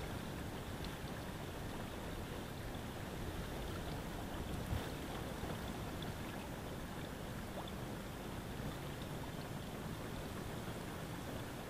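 Wind buffeting the microphone: a steady low rumble with no pitched tone, broken by a single knock about five seconds in.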